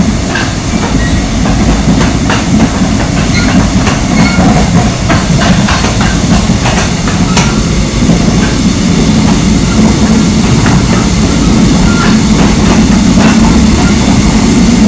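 Mugunghwa-ho passenger train running at speed, heard from inside the carriage: a steady rumble of wheels on the rails with irregular clicks and clacks, more of them in the first half.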